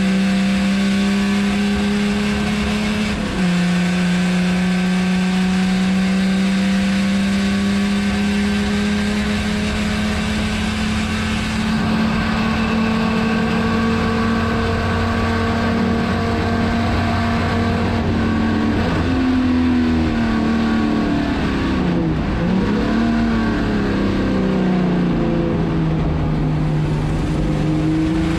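Opala race car's 4.1-litre straight-six running hard at high revs, heard from inside the cabin. The engine note drops sharply at a gear change about three seconds in and climbs slowly afterwards; in the last third the pitch falls and rises several times in quick succession.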